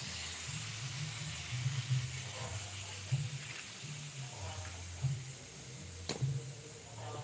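Refrigerant gas hissing out of a freshly cut pipe on a Polytron one-door refrigerator's sealed system, a steady hiss that slowly weakens, over a low hum. A single sharp click about six seconds in.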